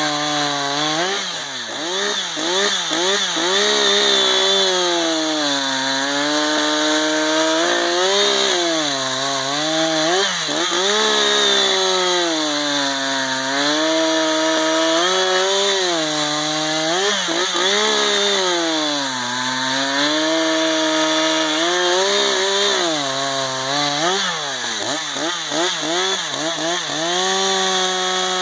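Two-stroke gas chainsaw cutting wood. The engine pitch sags as the chain bites and climbs back again, over and over.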